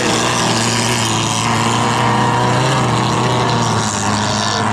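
Engines of touring-class autocross cars running hard as they race on a dirt track, a steady blend of several engine notes that waver slightly in pitch.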